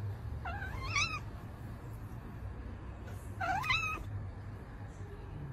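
A cat meowing twice, two short meows that waver up and down in pitch: one about half a second in and another about three and a half seconds in.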